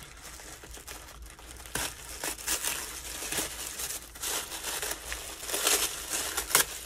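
Tissue paper wrapping crinkling and rustling as a package is unwrapped by hand, in irregular crackles that grow louder toward the end.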